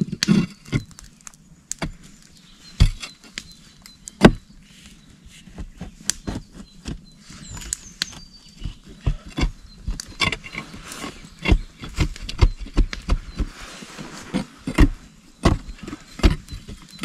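Hand pickaxe striking and scraping into packed earth at the bottom of a pit: irregular sharp blows, a few seconds apart at first and coming much more often in the second half.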